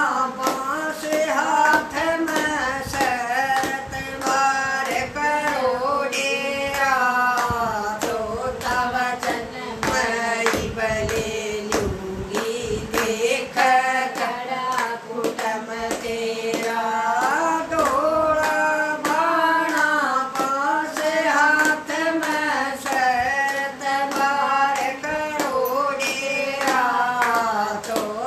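Women singing a Haryanvi bhajan together, keeping time with hand claps throughout.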